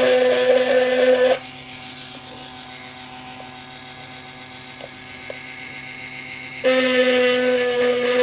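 HERZO cordless mini rotary tool running at its top 15,000 RPM setting, a steady high whine as its bit engraves an aluminium laptop case. It stops about a second in, leaving a faint hum, and starts up again near the end.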